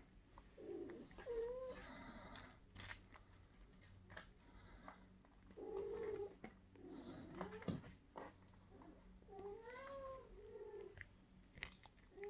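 Kittens mewing: several short, faint meows spaced a few seconds apart, each rising and then falling in pitch, with small clicks and rustles between them.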